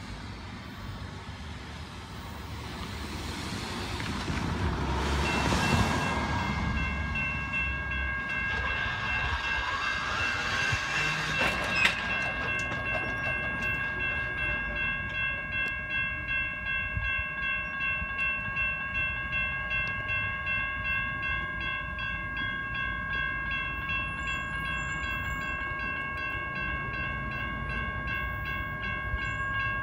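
Electronic railroad crossing bells (an NEG electronic bell and a General Signals Type 1 electronic bell) ringing with a quick, even, repeating ding. They come in faintly about five seconds in and ring loud from about twelve seconds on as the crossing activates. Earlier, traffic noise swells and fades, and a single sharp knock comes just before the bells grow loud.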